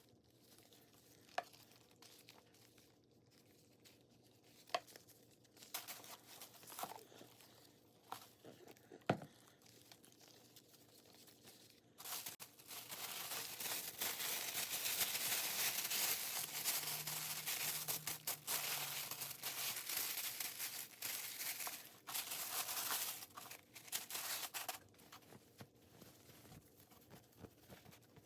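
Packaging being handled: a few light clicks and taps, then, a little before halfway, a long spell of steady crinkling and rustling of wrapping material that dies down near the end.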